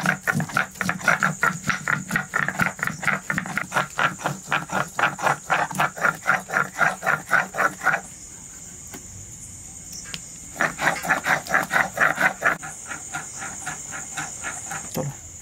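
Whole turmeric being ground into wet paste on a Bengali shil-nora: a hand-held stone rubbed back and forth on a flat stone slab in quick, even scraping strokes. The strokes stop about eight seconds in and start again about two seconds later for a short run. A steady high chirr of crickets runs underneath.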